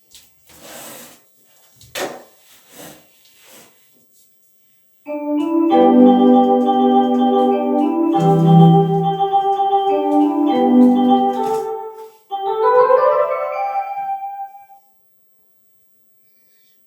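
A short electronic keyboard jingle in an organ-like tone. Sustained chords come in about five seconds in, then a quick rising run of notes closes it, after a few faint clicks at the start.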